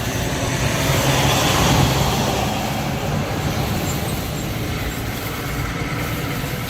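Steady street traffic noise, swelling a little about a second or two in.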